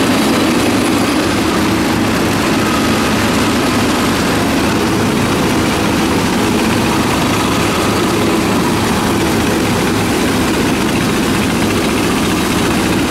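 Belarus 250 (T-25) tractor's two-cylinder air-cooled diesel running steadily under load, driving the PTO mower through tall weeds.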